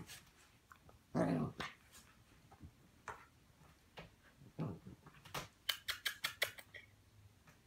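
Puppies play-fighting: short, scattered dog sounds, the loudest about a second in, then a quick run of short sharp sounds near six seconds.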